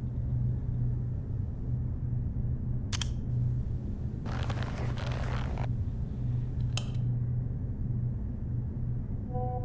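Steady low hum, with two sharp clicks and about a second and a half of rustling noise between them, and a steady pitched tone starting near the end.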